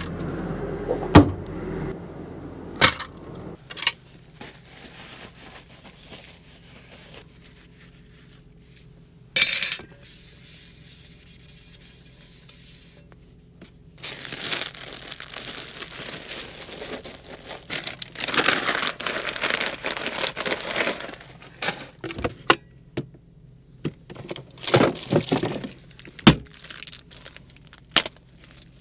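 Dishes being handled: sharp knocks of a plate, frying pan and cutlery being set down, with one louder clatter about a third of the way in. A long stretch of paper tissue rubbing over a knife and pan follows, and near the end a plastic bread bag crinkles.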